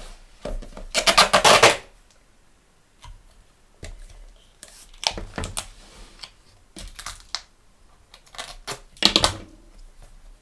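Sticky tape being pulled off the roll and pressed down: short bursts of crackling rasp, the loudest about a second in and more around five, seven and nine seconds, with handling noise between.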